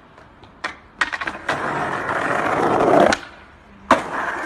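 Small hard skate wheels rolling and grinding loudly on concrete for about two seconds, then a sharp clack near the end.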